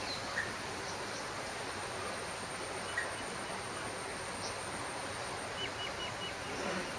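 Steady background hiss with a faint constant high whine. Four faint short chirps come in quick succession near the end.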